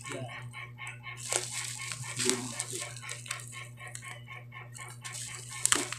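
Clear plastic packaging crinkling and rustling as the fishing reel's box is handled: a run of small irregular crackles over a steady low hum.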